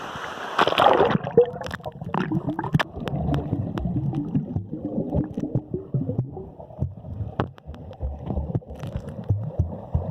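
A splash about half a second in as the dive enters the water, then muffled underwater gurgling and bubbling with scattered clicks.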